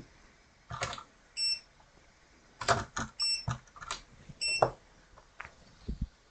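Clicks and knocks of small tools being handled during soldering work on a circuit board, with three short, high electronic beeps: about a second and a half in, near the middle, and near the end.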